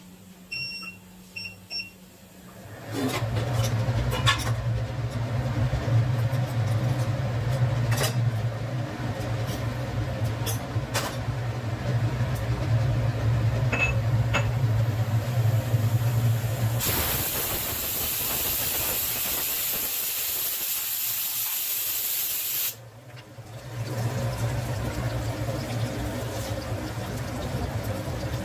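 Hot oil sizzling in the base of a pressure cooker as seeds and then chopped onion fry, with scattered crackles and a louder, hissier stretch in the middle, over a steady low hum. Three short beeps sound about a second in.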